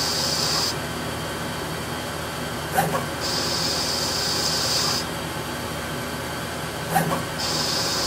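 Hardinge HLV CNC lathe running a taper turning cycle on a rifle barrel: a steady machine hum, and about every four seconds a short click followed by a high hiss lasting nearly two seconds as the tool makes another pass on the cone.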